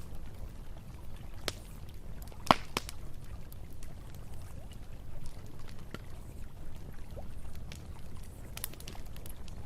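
Campfire burning: burning wood crackling with scattered sharp pops, one loud pop about two and a half seconds in, over a steady low rumble.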